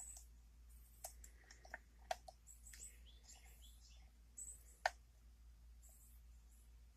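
Faint scattered clicks and light scratching of a lock pick and tension wrench working the pins of a challenge lock during single-pin picking, with the sharpest click about five seconds in.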